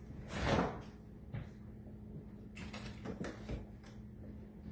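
Kitchen handling sounds: a short sliding sound about half a second in, then a few light knocks as things are set down and moved on the counter, over a steady low hum.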